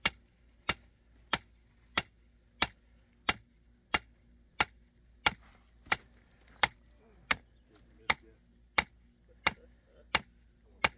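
A short-handled hammer striking the top of a copper rod over and over, driving it into the ground. The metal-on-metal blows are sharp and evenly paced, about three every two seconds, about seventeen in all.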